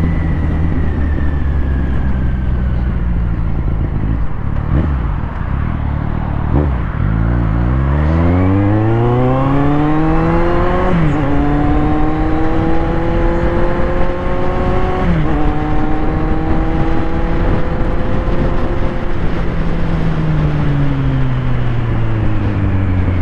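Motorcycle engine accelerating through the gears, its pitch climbing steadily, dropping sharply at two upshifts in the middle and climbing again, then falling away near the end as the throttle eases off.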